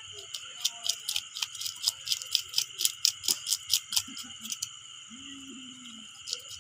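A knife scraping and working over a large snakehead fish in quick short strokes, about four a second, stopping about two-thirds of the way through. A steady chorus of night insects runs underneath.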